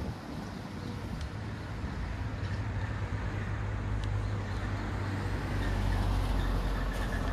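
Road traffic at an intersection, with a pickup truck driving past close by; its low engine rumble swells and is loudest about six seconds in.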